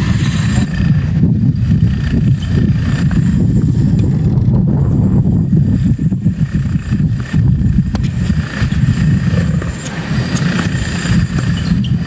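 Strong wind blowing across the microphone: a loud, low rumble that rises and falls in gusts.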